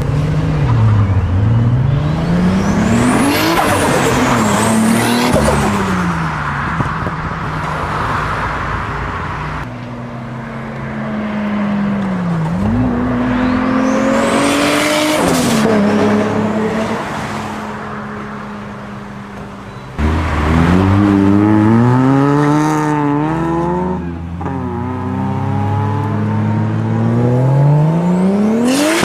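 Toyota MK4 Supra's straight-six engine revving hard again and again, the pitch climbing and dropping in quick sweeps, across three clips joined by sudden cuts. A faint high whistle rises along with some of the revs.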